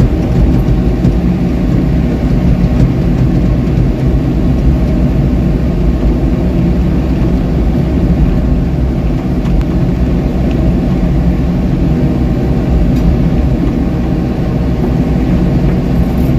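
Komatsu PC78US mini excavator's diesel engine running steadily, heard from the operator's cab.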